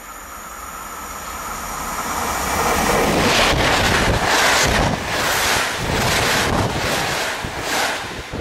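Passenger train passing close at speed. Its rushing noise swells over the first few seconds as it approaches, then holds loud with a surge about once a second as the coaches go by, and its slipstream buffets the microphone.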